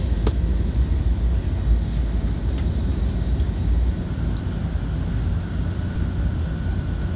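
Steady low rumble and hiss inside the cabin of the 500 series Hello Kitty Shinkansen, with a faint thin whine joining about halfway and a single click near the start.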